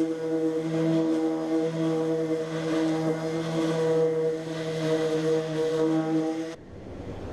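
Electric random orbital sander running steadily on a wooden drawer box: a steady motor hum with sanding hiss over it. It stops abruptly near the end.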